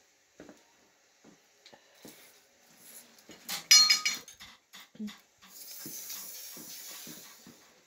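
Steel tape measure being pulled out along a steel rectangular tube on a concrete floor: scattered clicks and knocks, a loud metallic clatter with a brief ringing about halfway, then a steady hiss for about two seconds.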